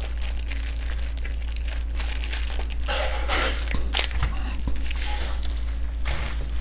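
Clear plastic bag crinkling and rustling as hands handle and unwrap small headset parts, with a few sharp crackles near the middle, over a steady low hum.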